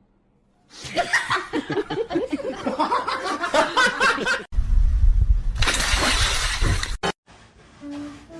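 Laughter for about three and a half seconds after a brief silence, then a loud rough noise for about two and a half seconds, heaviest in the low end. Faint music tones come in near the end.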